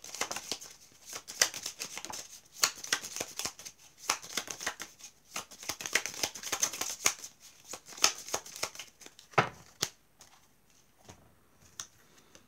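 A small deck of paper oracle cards being shuffled by hand, a rapid run of papery riffles and clicks. The shuffling stops with a single louder knock about nine seconds in, followed by a few faint clicks as cards are laid down.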